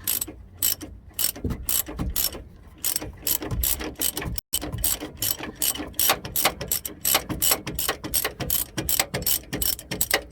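Hand ratchet wrench clicking in quick runs as it spins a nut off the lower shock-mount bolt of a truck's front shock, the other end of the bolt held with an adjustable wrench. There is a brief break a little before halfway.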